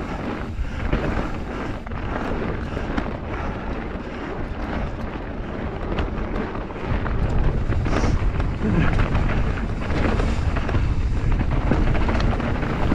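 Wind buffeting the microphone over the noise of mountain bike tyres rolling on a rough forest trail, with small rattles and knocks from the bike. The low wind rumble grows stronger about seven seconds in.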